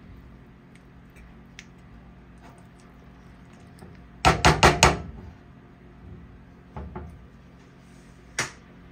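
A silicone spatula tapped against the rim of a frying pan four times in quick succession. Two more single knocks follow near the end.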